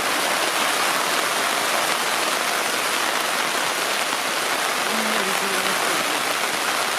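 Steady heavy rain falling, a constant even hiss. A faint short voice-like sound comes through about five seconds in.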